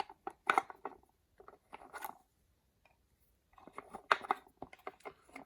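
Small metal winding chucks of a clock mainspring winder set clicking and rattling as they are handled, in three short clusters, the last and longest starting about three and a half seconds in.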